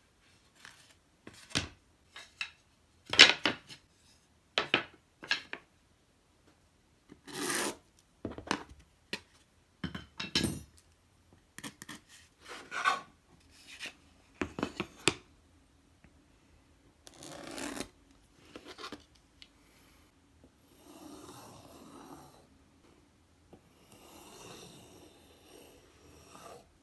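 Close-up hand-work noises: a string of short scrapes, rubs and taps, irregularly spaced, then two longer stretches of softer continuous rubbing near the end.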